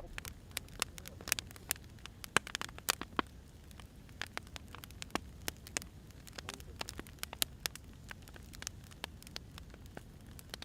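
Firewood burning in a fire, crackling: irregular sharp pops and snaps, a few louder than the rest, over a low steady rumble.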